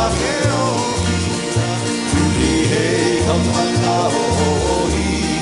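Hawaiian string band playing: acoustic guitars and ukulele strumming over an upright bass plucking a steady beat.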